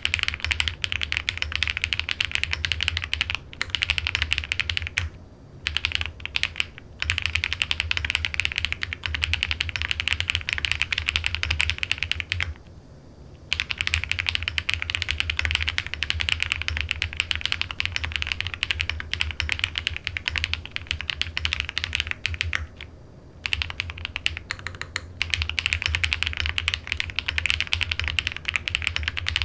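Fast, continuous typing on a MatrixLab CORSA custom mechanical keyboard: lubed Swagkey Pureberry switches with Krytox 205g0, on a flex-cut aluminium plate with full foam and Omnitype Modern Dolch keycaps. It gives dense runs of key clicks with a low thock underneath, broken by brief pauses, the longest about a second near the middle.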